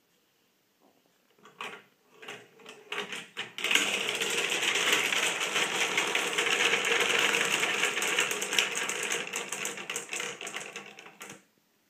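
Glass marbles tipping off the trays of a wooden marble clock and rolling and clattering down its wooden tracks into the bottom tray as the clock resets. A few scattered clicks first, then from about four seconds in a dense, continuous rattle of clicking that stops suddenly near the end.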